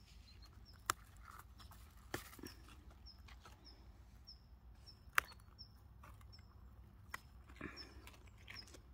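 Hands rustling in dry straw mulch and snapping squash flower stems, with a few sharp clicks, the loudest about five seconds in. A short high chirp repeats steadily through it.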